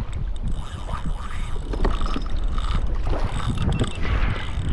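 Wind buffeting the microphone over water lapping and splashing against a kayak hull on choppy open sea.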